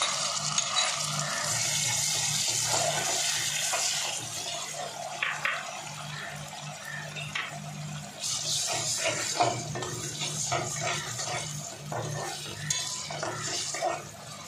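Chopped tomatoes and fried onions sizzling in hot oil in an aluminium pan, with a metal spoon scraping and clinking against the pan as they are stirred. A steady low hum runs underneath.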